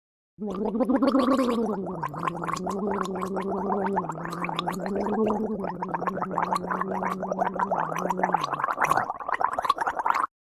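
A woman gargling, holding one low voiced note through dense, rapid bubbling for almost ten seconds. Near the end her voice drops away while the bubbling carries on briefly, then cuts off suddenly.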